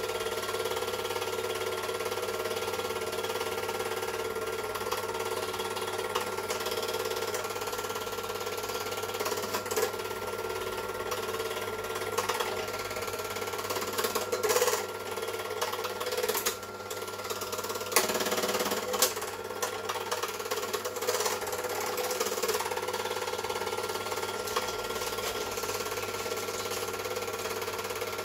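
Super 8 film projector running: a steady mechanical whir and hum. A run of irregular clicks and knocks comes in the middle, while the projected picture jumps and smears.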